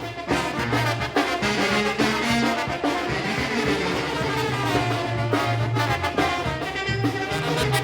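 Mexican banda brass band playing: trumpets and trombones over a low tuba bass line, with a steady drum beat.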